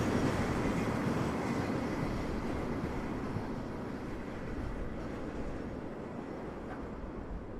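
Freight train rolling away, its rumble and wheel noise fading steadily.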